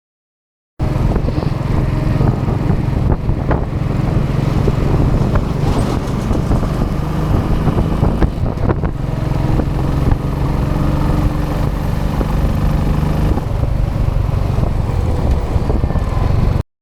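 Royal Enfield Classic 500 EFI's single-cylinder engine running through its stock exhaust while the motorcycle is ridden along the road, with wind and road noise. The sound starts suddenly a little under a second in and cuts off abruptly near the end.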